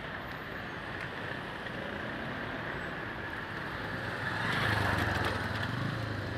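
Steady outdoor noise with a vehicle engine running, growing louder for about a second some four and a half seconds in.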